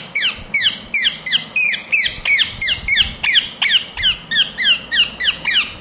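Rose-ringed (Indian ringneck) parakeet calling a rapid, even series of high squawks, each one falling in pitch, about three to four a second.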